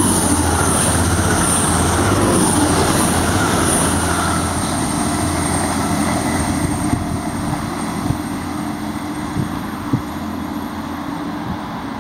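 Class 185 diesel multiple unit passing through at speed. Its engines and wheels on the rails are loud at first, with a pulsing high hiss as the cars go by, then fade steadily as it draws away.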